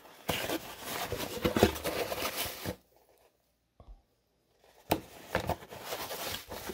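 Cardboard box being opened and handled: rustling and scraping of cardboard and packing foam. The rustling stops for a second or two of silence in the middle, then comes a sharp click about five seconds in and more rustling.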